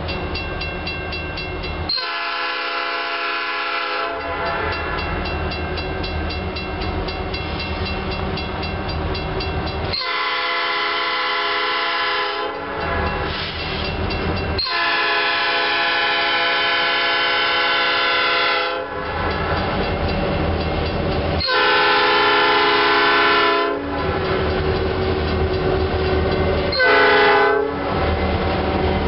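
Norfolk Southern SD40-2 high-hood diesel locomotive approaching and sounding its chime air horn in five blasts: four long ones, the third the longest, and a short one near the end. Its diesel engine runs low and steady between the blasts as it comes close.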